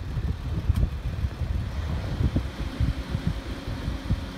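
Wind buffeting the microphone in uneven gusts, over a low steady hum of a distant jet's engines on the airfield.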